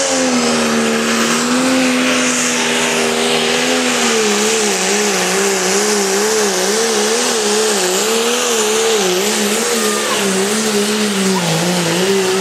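Pulling tractor's engine running hard at full throttle, dragging a weight-transfer sled. Its note holds steady at first, then from about four seconds in wavers up and down about twice a second as the engine labours under the sled's load.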